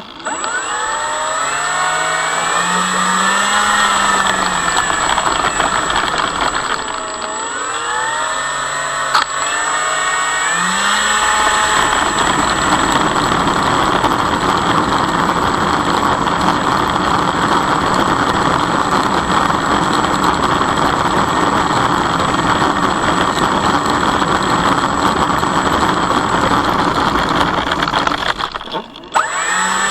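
Electric motor and propeller of a radio-controlled Cessna model plane. For about the first twelve seconds the whine rises and falls with throttle changes, then it settles into a steady rushing drone that drops away near the end.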